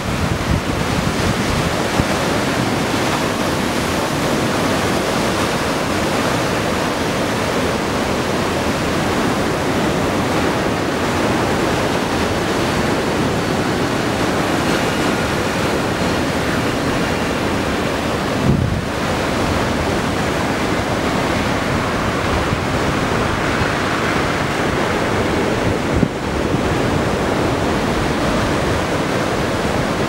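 Ocean surf breaking and washing onto a sandy beach, a steady loud rush of waves with wind buffeting the microphone.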